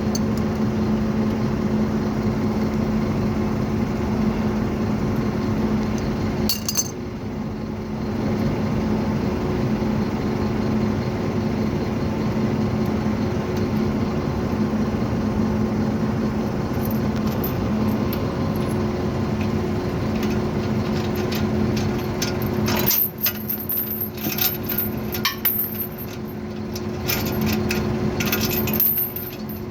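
Tow truck engine running steadily, with metal chains clinking and rattling in bursts during the last several seconds as the tie-down chains are handled.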